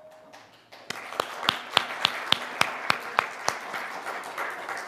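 A congregation applauding, with one person's loud, regular claps close by, about three a second, standing out over the crowd until well past the middle.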